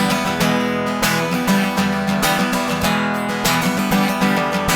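Acoustic guitar strummed in a steady rhythm, playing the song's accompaniment on its own.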